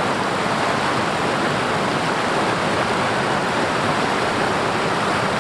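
Steady rush of a nearby river: fast water running over rocks, an even, unbroken noise.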